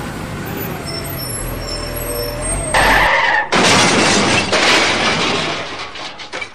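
Cartoon truck sound effects: an engine running low and steady, then about three seconds in a loud, harsh burst of noise lasting about three seconds and fading near the end.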